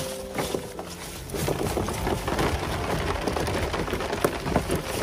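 Water pattering and splashing in a dense run of small drips, picking up about a second in, as from water streaming off a fish or crab trap being hauled out.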